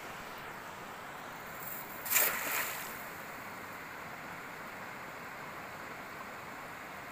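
A brief splash of water about two seconds in, over a steady hiss.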